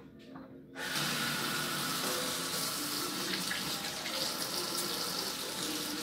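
Kitchen sink faucet turned on about a second in, then water running steadily from the tap into the sink.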